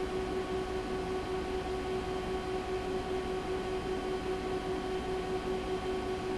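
A steady machine hum held at one pitch with overtones, over a faint hiss.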